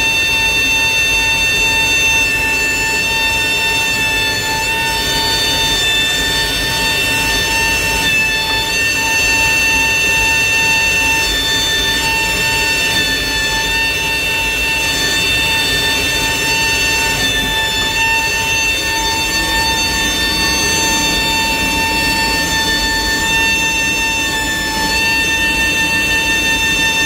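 Steady high whine of a hydraulic pump running, one constant tone with several overtones, as hydraulic pressure is supplied to the Boeing 737's aileron power control unit during its operational check.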